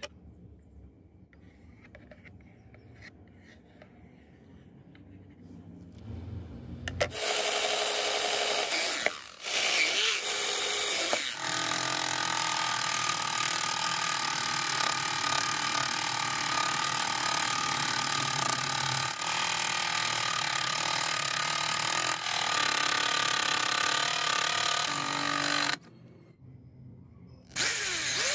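Small scroll saw running and cutting a curve through a thin sheet, a steady buzzing whine that starts about a quarter of the way in and stops shortly before the end. A few seconds of faint scratching come before it, and a cordless drill spins up right at the end.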